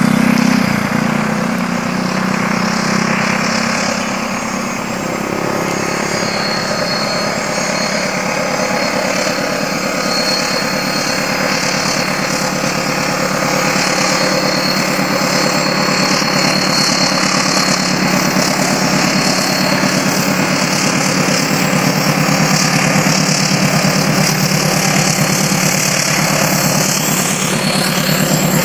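Diesel-hauled passenger train passing close by, its engine running steadily, with a thin high-pitched whine over part of the pass.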